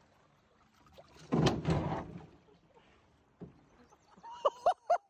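Canoe shooting through fast water under a bridge: a loud rushing noise of under a second about a second in, then short, high cries from the people aboard near the end.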